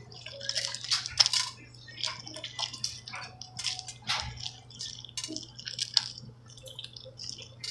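Slime being squeezed and kneaded by hand, making irregular wet squelches, small pops and crackles.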